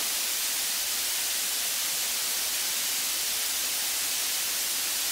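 Steady, even hiss of background noise with no other events.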